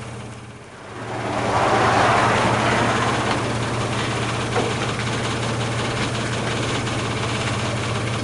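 Four-wheel-drive vehicle's engine running steadily, with a rushing noise that swells in about a second in and holds.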